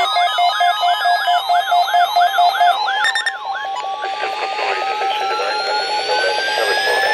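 Layered electronic alarm tones: a warbling tone sweeping up and down about three times a second over steady beeps. About three seconds in it gives way to a single siren-like tone rising slowly in pitch over a fast pulsing beep.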